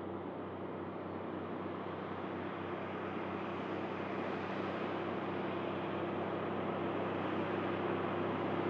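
Heavy diesel truck hauling an oversize low-loader, approaching along the highway: a steady engine drone at an even pitch with tyre and road noise, slowly growing louder.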